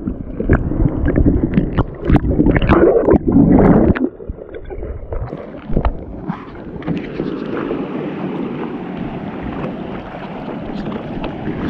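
Seawater sloshing and gurgling over a camera mounted at the waterline of a kayak as it dips under the waves, with sharp splashes for the first four seconds. After that comes a steady rush of wind and choppy water.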